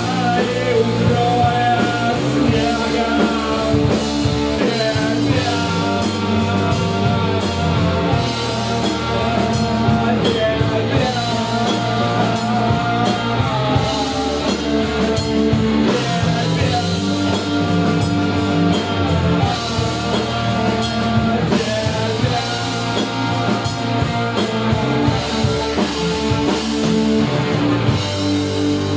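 A live rock band plays loudly: electric guitars, bass guitar and drum kit.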